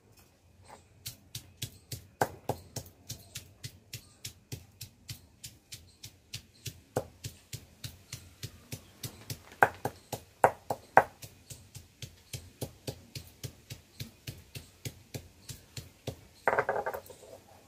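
Stone pestle knocking down on a flat stone grinding slab, about three strokes a second, crushing raw prawn heads into a paste; a few strokes land much harder. A short, louder noise comes near the end.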